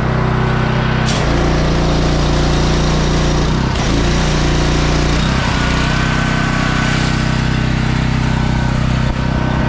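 Petrol engine of a 3,500 PSI direct-drive pressure washer running steadily, its pump drawing water from a holding tank and spraying it through the wand with a hiss. The engine note shifts briefly a few times.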